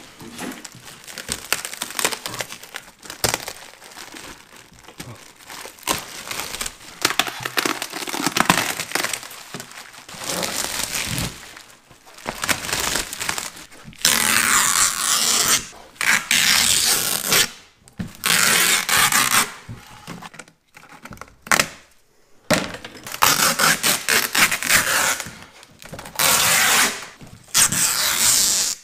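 Plastic vacuum-bag film and mesh flow media being torn and peeled off a freshly oven-cured composite layup: crinkling and tearing in irregular bursts, louder and longer in the second half.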